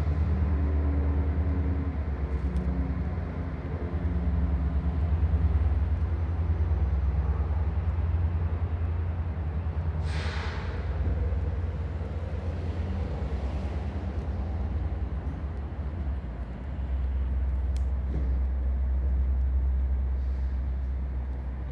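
A large motor running with a steady low rumble and a faint hum over it, and a short hiss about ten seconds in.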